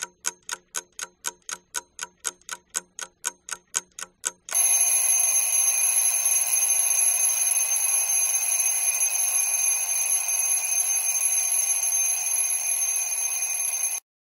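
Alarm clock sound effect: a clock ticking about four times a second, then, about four and a half seconds in, the alarm bell rings steadily for about nine seconds and cuts off suddenly, marking the end of the thinking time.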